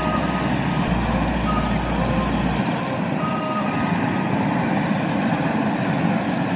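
Hot-air balloon's propane burner firing in one long, steady blast at an even level.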